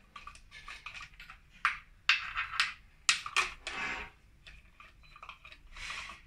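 Compression-gauge hose and its threaded adapter being moved and fitted into a spark-plug well of a Nissan CR12DE engine's aluminium valve cover: irregular metallic clicks, clinks and short scrapes.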